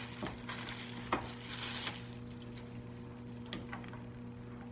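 Plastic wrapping rustling, with light clicks and taps as a power cord is pulled out of its bag and unwrapped. The handling noises are busiest in the first couple of seconds, then thin out to a few scattered ticks, over a faint steady hum.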